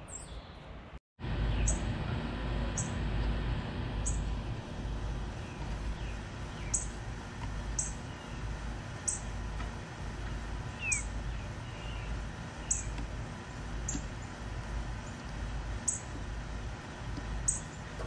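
Short, very high bird chirps repeating roughly once a second, with a few fainter bird calls between them, over a steady low rumble. The sound drops out completely for a moment about a second in.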